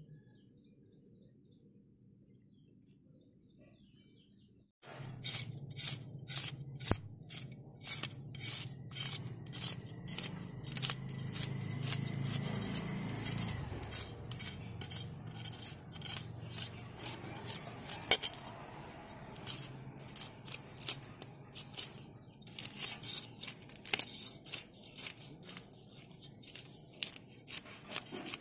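Knife blade scraping the scales off a large carp in quick repeated strokes, with scales clicking and scattering on the concrete. The scraping starts about five seconds in, after a faint stretch with a few light bird chirps.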